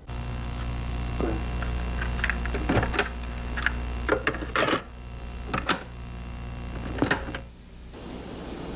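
Cassette tape deck being handled as a tape is loaded: a series of sharp mechanical clicks and clunks, some in quick pairs, over a steady electrical hum.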